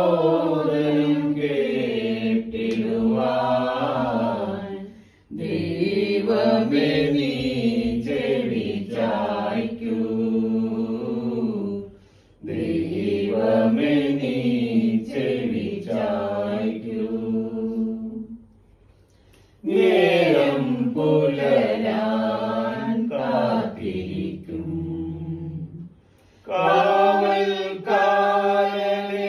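A small mixed choir of men and women singing a slow Malayalam hymn for the departed, in long phrases of several seconds each with short pauses for breath between them.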